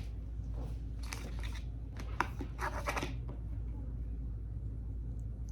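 Hands working crinkly material: a run of short crinkling, crunching noises from about one to three seconds in, over a low steady hum.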